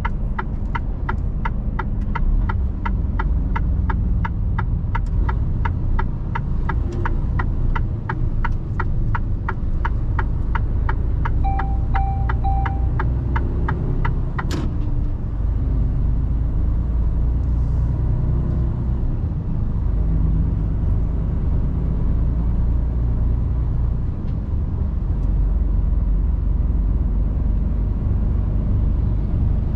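Inside a Mercedes Actros truck cab: the engine and road noise make a steady low rumble. For the first half, the turn-signal indicator ticks steadily at about three ticks a second, with three short electronic beeps shortly before it stops with a sharper click about halfway through.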